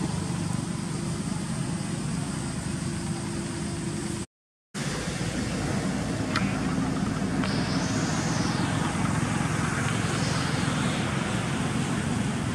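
Steady outdoor background rumble like distant road traffic, with a faint low hum. The sound cuts out completely for about half a second four seconds in, and a hiss swells and fades around eight seconds in.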